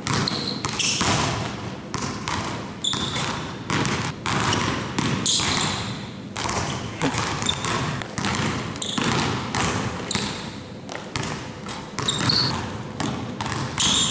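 Basketballs bouncing on a hardwood gym floor in irregular dribbling rhythms, with a few brief high sneaker squeaks.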